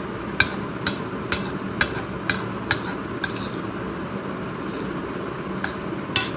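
Metal spoon clinking and scraping against a ceramic plate while eating rice: a run of about seven sharp clinks, roughly two a second, then a pause and two more near the end.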